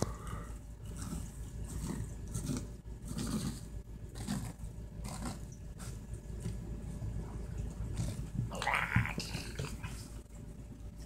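Kitten playing and scrambling around a room: scattered light knocks and scuffles, with a short louder noisy burst about nine seconds in.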